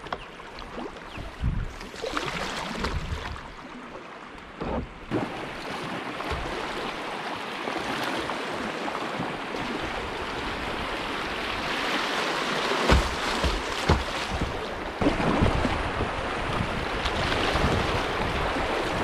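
Moving river water rushing through a shallow riffle, growing louder as the kayak runs down into the faster flow, with a few short paddle splashes and knocks on top.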